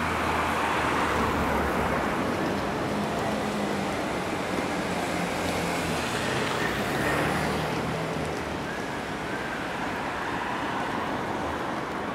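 City street traffic: a steady wash of vehicle and tyre noise with the low hum of running engines.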